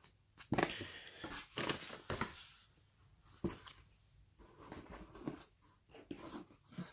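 Cardboard snack box and its paper contents being handled and opened by hand: irregular rustling and scraping, in short bursts with a few sharper knocks.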